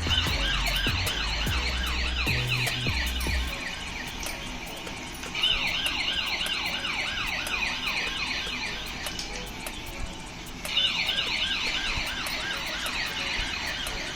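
Toy RC police car's electronic siren, a fast warble of about four swoops a second, sounding in three bursts of a few seconds each.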